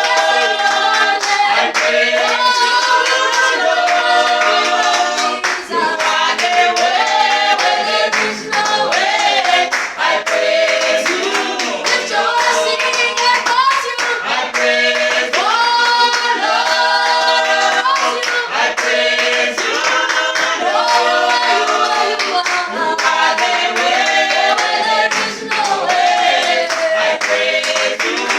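A praise team of several voices singing a gospel praise song together, with steady hand clapping along to the beat.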